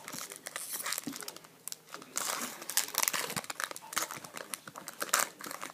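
Packaging of a box of hockey card packs crinkling and tearing, in irregular bursts as the box and foil packs are opened.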